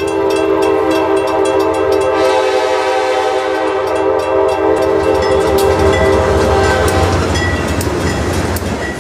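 Freight locomotive air horn sounding one long, loud blast of about seven seconds over the low rumble of the train. After the horn stops, the rumble and sharp clicks of wheels going over the rails carry on.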